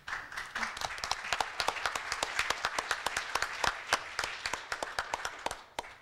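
Audience applauding: many hands clapping densely. It starts at once, then thins out and stops about five and a half seconds in.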